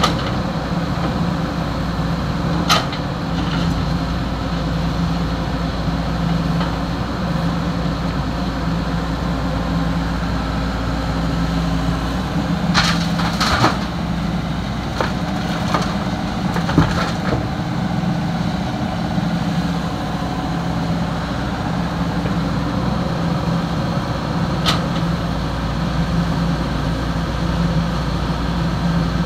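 Heavy-equipment diesel engine running steadily, with a few sharp clanks and knocks over it, a cluster of them about halfway through.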